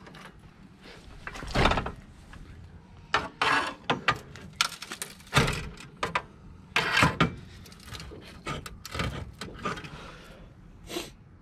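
Irregular clunks and knocks of metal tools and parts being handled during work under a car, a dozen or so sharp hits at uneven intervals.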